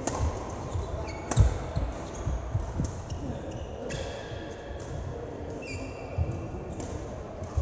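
Sounds of play on a hard indoor court: two sharp hits, the first at the very start and the second about a second and a half in, with low thuds of ball bounces or footfalls throughout. Short high squeaks, like shoes on the floor, come in the second half, over faint background voices.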